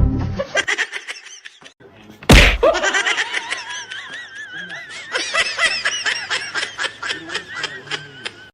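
A person laughing hard in a rapid run of bursts, after a loud knock about two seconds in.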